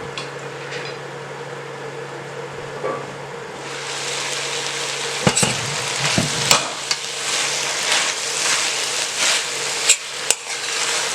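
Chicken and vegetables frying in curry paste and oil in a pan, the sizzle rising sharply about four seconds in, with a spatula clicking and scraping against the pan as it is stirred. Before that there is only a steady low hum and a few light knocks.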